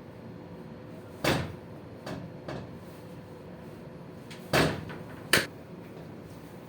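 Sharp knocks and cracks from a chiropractic adjustment. A loud one comes about a second in, then two softer ones, then two more loud ones close together later on.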